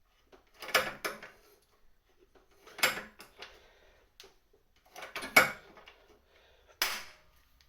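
Hand rivet gun being squeezed to set a blind (pop) rivet through an aluminium pedal cover plate: four sharp metallic clicks about every two seconds as the jaws grip and pull the rivet's mandrel until it snaps off.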